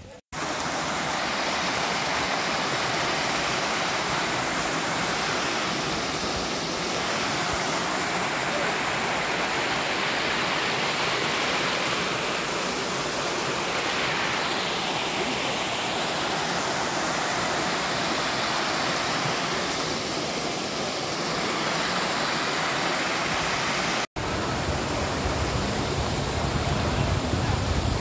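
Steady rushing of a waterfall and its rocky stream, a continuous even wash of water noise. It breaks off for an instant near the end and comes back with a deeper rumble.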